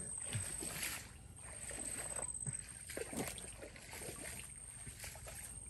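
Light splashing and sloshing of shallow muddy water as someone works in it by hand, with small scattered clicks and taps.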